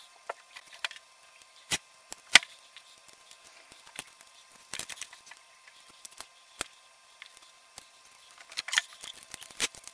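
Scattered clicks and knocks of electric-skateboard hardware being handled: a hub motor and truck picked up and fitted together on a workbench. The two loudest are sharp knocks about two seconds in.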